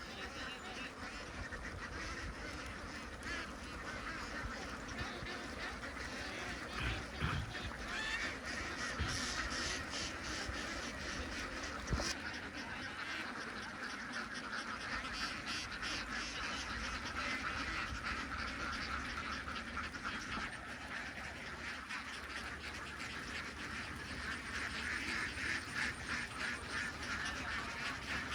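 A large flock of ducks quacking nonstop, many calls overlapping into a dense chorus that swells slightly near the end. A single sharp knock cuts through about halfway.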